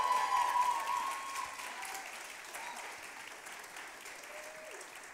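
Audience applauding with a high cheer over it at first, loudest in the opening second or so and then dying down slowly.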